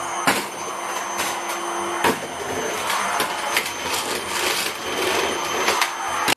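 Vacuum cleaner running with a steady whirr, with repeated knocks and clatter over it. The sound stops abruptly at the end.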